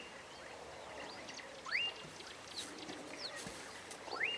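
Birds calling: one bird repeats a clear whistle that rises and then holds its pitch, about every two seconds, while others add faint short high chirps.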